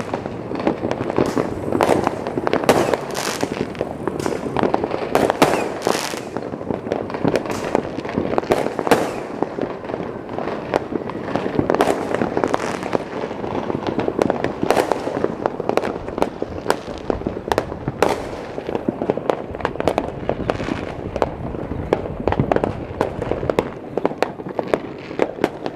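Many fireworks going off at once at different distances: a near-constant stream of overlapping bangs and crackles.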